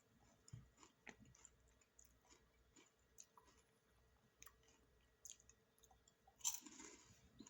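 Faint chewing of a snack, with scattered soft mouth clicks, and one short louder burst of noise near the end.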